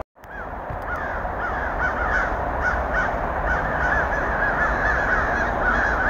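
A flock of crows cawing, many calls overlapping in a continuous chorus over a steady low rumble.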